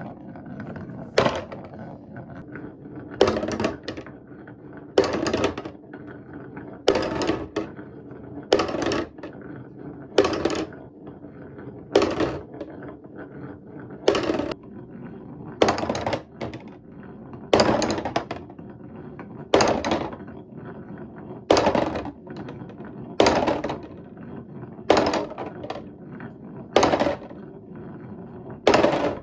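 Wooden marble run toy with pieces rolling along wooden track, giving a steady low rumble with a sharp wooden clack and short rattle about every two seconds as they knock through the turns.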